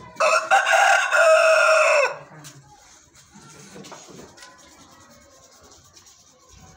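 Rooster crowing once, a loud call of about two seconds just after the start.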